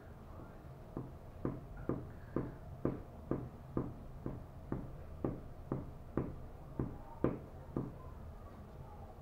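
Fabric glue being spread onto a small tissue-paper cutout in quick, even strokes, about two a second.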